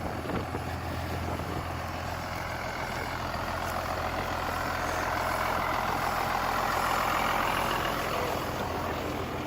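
The bus's 5.9-litre Cummins diesel idling steadily, with a rushing hiss that swells about midway and eases near the end.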